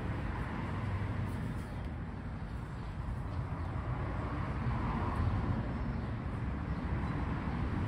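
Steady low rumble of outdoor background noise, with a slight swell about five seconds in and no distinct event.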